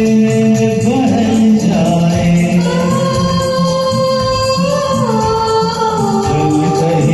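Hindi film song sung over a karaoke backing track, with long sung notes that step up and down in pitch.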